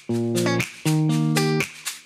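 Background music: a guitar playing sustained chords in a steady, repeating pattern, a new chord about every half second.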